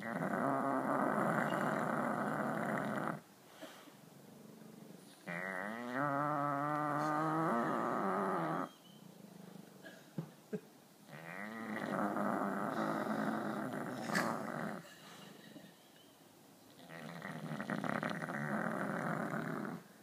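An Australian Bulldog snoring in her sleep: four long snores about five to six seconds apart, each lasting three to four seconds, the second with a wavering pitch.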